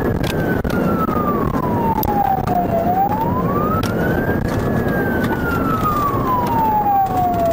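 Police siren on a slow wail, its pitch sliding down and back up about every five seconds, over steady engine and road noise.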